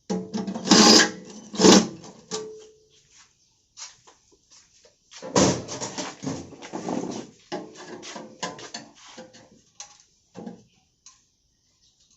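Irregular knocks and clatter, the loudest in the first two seconds and again about five to seven seconds in, with quiet gaps between.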